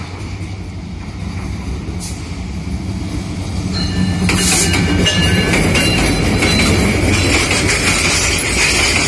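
Bangladesh Railway diesel locomotive 3015 approaching with its engine running, growing louder until it passes close by about four seconds in. The box wagons of the freight train then roll past with a steady rumble of wheels on rail and a high steady whine.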